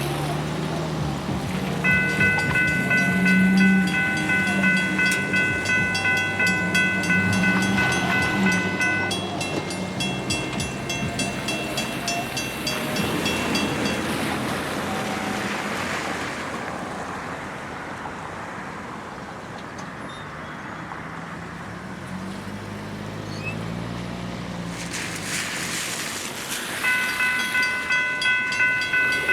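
Electronic railroad crossing bell ringing steadily and rapidly. It stops a little under halfway through and starts again near the end. The crossing is malfunctioning and activating with no train present, a fault the railroad crew put down to a recent power surge.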